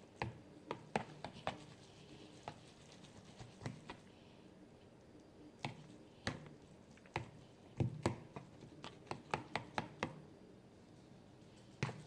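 A fork stirring cooked instant ramen noodles in their container, its tines tapping and scraping against the sides in irregular clusters of sharp clicks as the noodles are worked loose.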